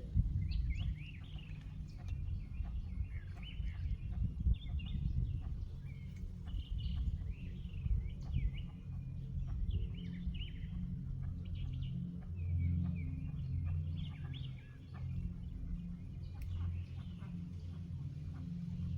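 Several songbirds chirping and trilling in quick, overlapping short calls, over a steady low rumble.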